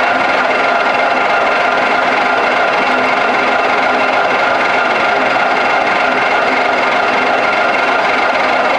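Metal lathe running steadily, a continuous mechanical whine of several steady tones over cutting noise, while a tool on the tailstock turret head is hand-fed into the spinning hex bar stock.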